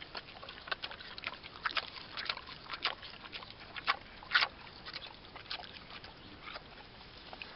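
Kunekune pig chewing pieces of apple with her mouth open: irregular wet smacks and crunches, a few a second, the loudest about four and a half seconds in.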